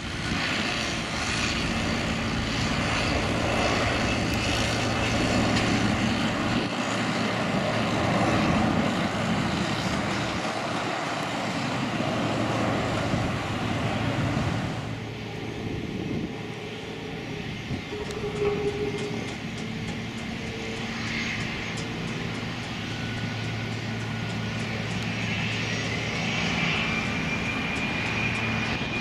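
Airbus A319 jet engines at takeoff thrust, a loud steady rushing roar as the airliner climbs away. After a cut about halfway, a jet sits on the runway with quieter engine noise, and a high whine rises near the end as its engines spool up.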